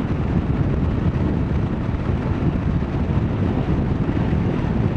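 Motorcycle riding along: steady engine and road noise mixed with wind rushing over the helmet-mounted microphone.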